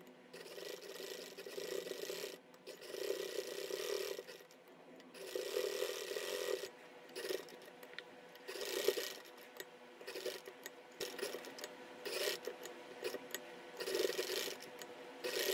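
Domestic sewing machine stitching a lace patch onto a sleeve in stop-start runs: longer runs of one to two seconds in the first half, then shorter bursts as the fabric is turned and repositioned.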